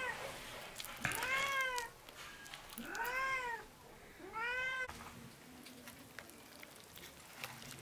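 A cat meowing four times over about five seconds, each call rising and then falling in pitch.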